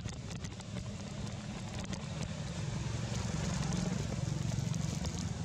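A steady low rumble that swells slightly about three to four seconds in, with faint scattered crackles over it.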